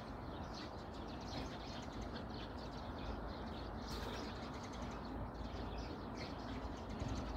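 Sparrows chirping, many short overlapping chirps in quick succession, over a low steady background rumble.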